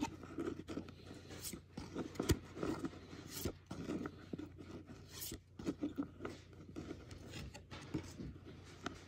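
A stack of baseball trading cards being flipped through by hand: card stock sliding and scraping against card, with irregular soft clicks and rustles as each card is moved to the back of the stack.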